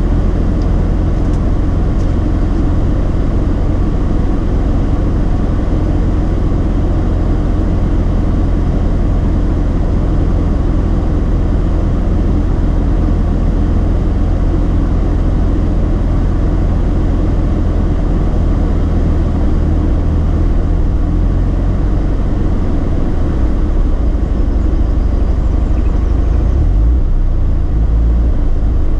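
Mazda RX-8's twin-rotor Wankel rotary engine idling warm, with a steady low exhaust drone that turns uneven near the end. The idle hunts up and down with misfires at low rpm, a fault traced to incorrectly wired injectors.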